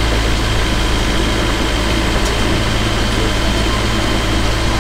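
A sailboat's engine running steadily while under way, heard inside the cabin as a constant low drone under a steady rushing noise.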